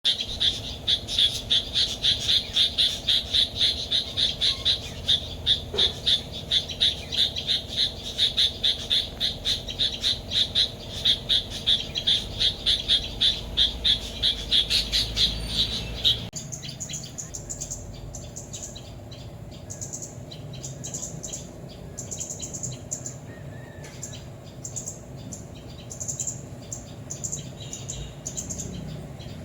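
Small songbirds giving a rapid, steady series of sharp alarm calls, about three or four notes a second, the scolding of birds mobbing a predator. About halfway through this gives way to quieter, higher, thinner chirps.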